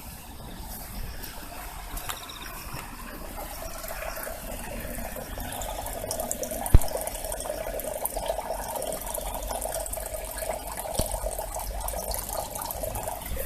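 Water running and pouring steadily, growing a little fuller a few seconds in, with a single sharp knock about halfway through.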